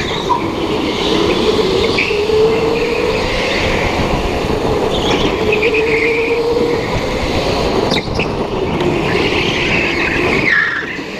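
Go-kart heard on board at speed, its motor's pitch slowly rising and falling as it works through the corners, with bursts of tyre squeal now and then.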